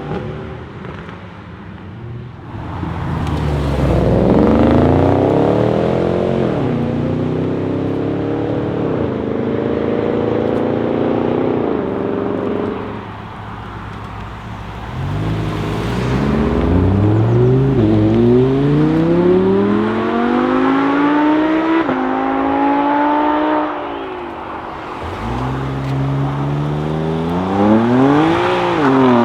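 Lamborghini Huracán's V10 accelerating hard through the gears, three times. Each time the engine climbs in pitch and drops back sharply at each upshift.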